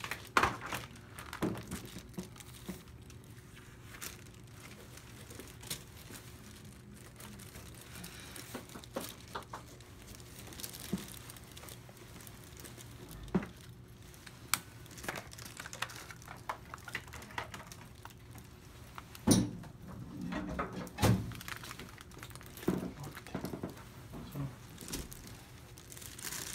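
Paper liner on a pediatric exam table crinkling now and then as a baby shifts on it, with scattered light knocks and a sharper one about two-thirds of the way through. Under it runs a faint steady hum, with the small room's echo.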